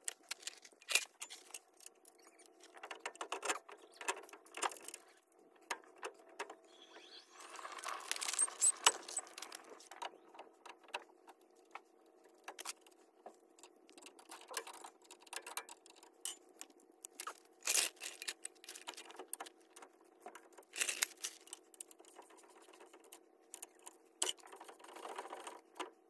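Irregular metallic clinks, taps and knocks of hand tools and steering parts being handled while a truck spindle is fitted to its ball joints, with a longer rattling scrape about 8 seconds in. A faint steady hum runs underneath.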